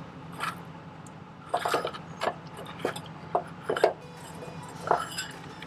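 Metal hitch hardware being handled: a string of sharp clinks and knocks, about eight in all and irregularly spaced, as parts of a weight-distribution trailer hitch are set in place. Faint music comes in near the end.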